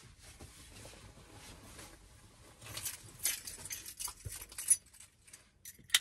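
Soft rustling of a tissue, then a bunch of keys jingling in the hand from about three seconds in, with a sharp click near the end.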